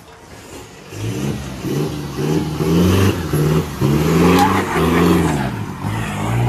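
Off-road vehicle's engine revving hard in repeated rising and falling surges from about a second in, as it struggles and fails to climb a steep slope.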